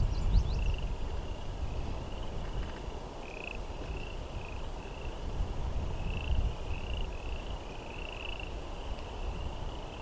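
Frogs calling from the pond: short trilled calls near one high pitch, repeated irregularly, over a low steady rumble of wind on the microphone.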